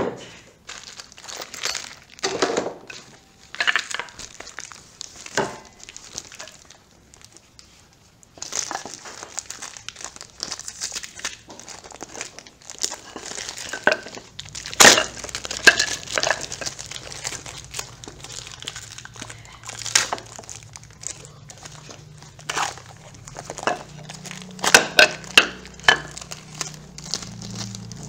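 Plastic packaging crinkling and rustling as wooden chair legs are unwrapped, with a few sharp knocks scattered through it, loudest about halfway and again near the end.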